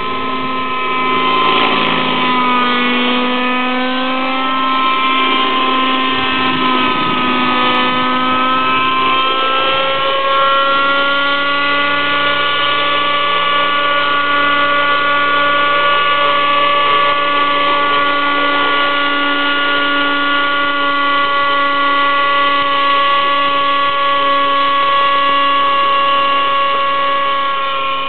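Thunder Tiger Raptor 60 radio-controlled helicopter in flight: its nitro-fuelled two-stroke glow engine and rotors whine continuously. The pitch rises and falls for about the first ten seconds, then holds a steady note.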